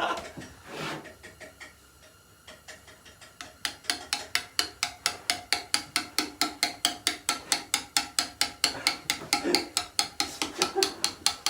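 Steel chisel struck again and again with a mallet, cutting into stone: a few scattered knocks at first, then from a few seconds in a steady run of sharp, even blows, about four or five a second.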